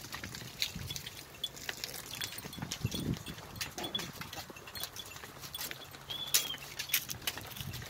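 A herd of zebu cattle walking on a dry dirt track: scattered irregular clicks and soft knocks of hooves, with a few duller thuds about three seconds in and one short high chirp about six seconds in.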